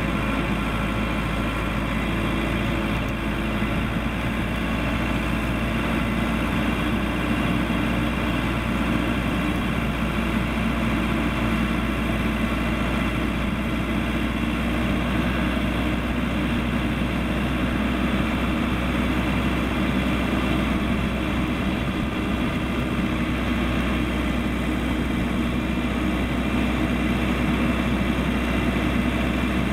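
Case 580L backhoe's turbocharged diesel engine running steadily, an even drone without revving or knocks.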